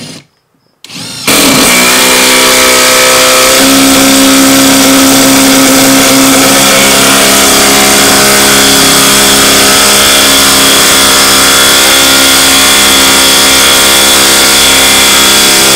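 Ryobi P238 18V impact driver hammering a half-inch lag screw into a wooden post, under heavy load. A couple of short bursts come first, then it runs without a break for about fifteen seconds, its pitch stepping up slightly a few seconds in, and stops suddenly near the end.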